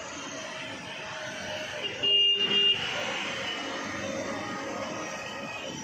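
Steady road traffic running, with a vehicle horn sounding briefly, for under a second, about two seconds in.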